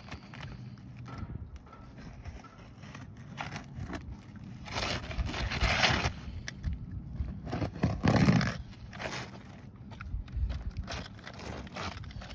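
Asphalt shingles scraping and rustling against each other as gloved hands slide and press a shingle into place, with a longer scrape about five seconds in and a heavier one near eight seconds.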